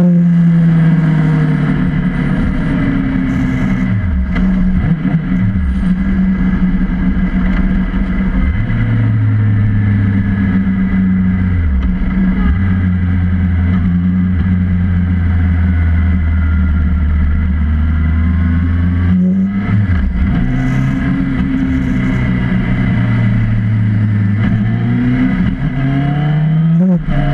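Motorcycle engine running at freeway cruising speed, a steady drone whose pitch dips and climbs back several times as the throttle is eased and reopened, under a constant rush of road and wind noise.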